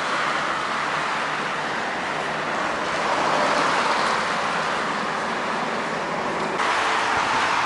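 City road traffic going past: a steady tyre-and-engine rush of passing cars that swells as vehicles go by.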